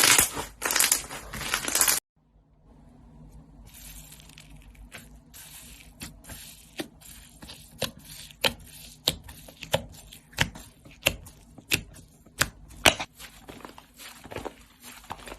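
Slime being worked by hand: about two seconds of dense, loud crunching and crackling, then a sudden cut to quieter handling with a run of sharp pops roughly every half second.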